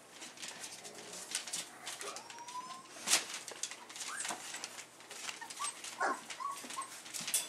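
Bullmastiff puppies whimpering: a rising whine about two seconds in, then several short, high squeaks. Around them are many small clicks and scuffles as the puppies move about the bedding and cardboard of the pen.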